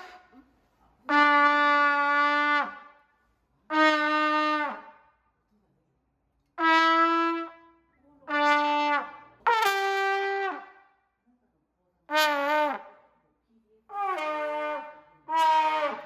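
A beginner playing a trumpet: about eight separate held notes with pauses between them, mostly on a low note with a couple higher, some wavering and bending in pitch. A short sharp click at the very start.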